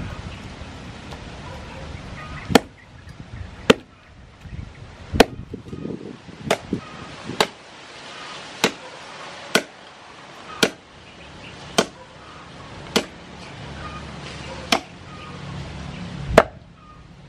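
Meat cleaver chopping a raw pork leg into pieces on a round wooden chopping block: about a dozen sharp, separate chops, roughly one a second.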